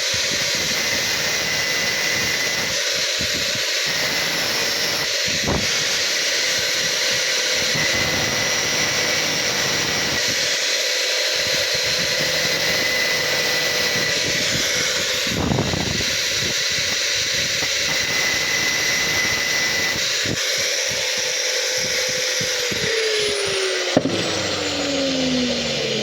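Angle grinder running and grinding metal, a steady loud whine over a rough hiss. Near the end the motor's tone falls steadily in pitch as it spins down.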